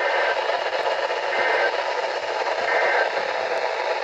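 Weather radio receiver hissing with static on a weak NOAA Weather Radio signal, with three faint, short two-tone data bursts about a second apart buried in the hiss: the digital SAME header tones of an Emergency Alert System message.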